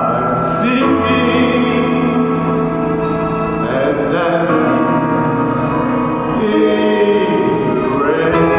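Symphony orchestra, strings prominent, playing a show tune while a man sings over it with vibrato.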